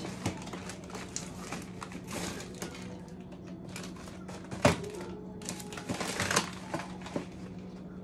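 Cardboard boxes of frozen food being shuffled and pushed around on freezer shelves: scattered rustling, scraping and tapping, with a sharper knock a little past halfway. A steady low hum runs underneath.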